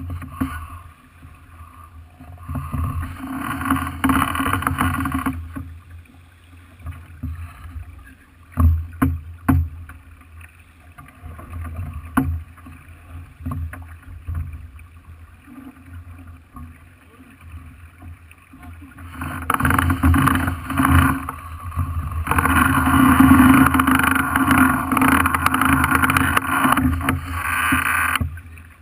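Water rushing along the hull of a sailing yacht under way, over a steady low rumble. The rushing swells in surges, loudest over the last several seconds, then cuts off suddenly near the end. A few sharp knocks come about a third of the way in.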